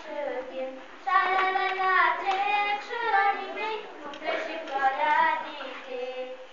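A young girl singing a song unaccompanied, in long held notes that bend in pitch.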